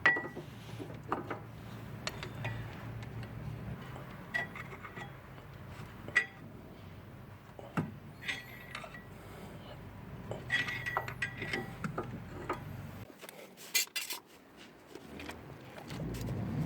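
Scattered metallic clinks and taps of hand tools working on a brake caliper, some with a short ringing tone, as the caliper pistons are pushed back.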